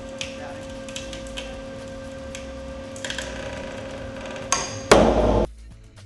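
Test rig pulling up on a Simpson Strong-Tie HDU hold-down screwed to a wood post: a steady hum with scattered sharp cracks and pings as the connection takes load. Then a sharp bang about four and a half seconds in and a loud crash lasting about half a second as the hold-down connection fails, after which the hum stops.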